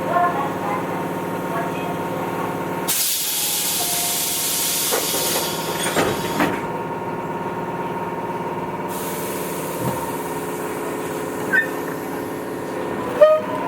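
Tobu 8000 series electric train running, with the steady hum of its motors and gears. About three seconds in, a burst of air hiss lasts a few seconds, with a couple of sharp clicks near its end. Short louder knocks come near the end.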